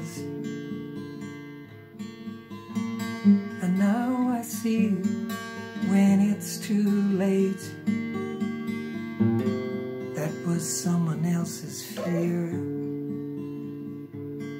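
Acoustic guitar strummed in steady chords, with a man's voice singing over it in phrases.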